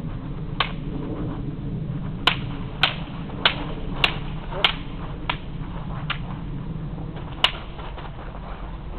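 Wooden practice weapons clashing in a sparring bout: a series of sharp clacks, a quick run of five about every half second from about two seconds in, then a few more spaced out, over a steady low rumble of background noise.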